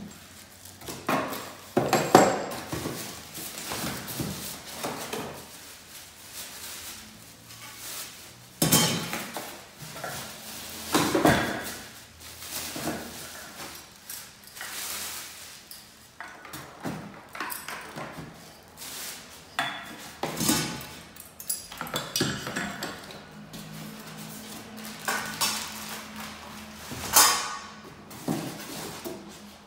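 Plastic bags crinkling and ceiling-fan parts clinking and knocking as they are unwrapped and set down on a table, in irregular bursts with pauses between.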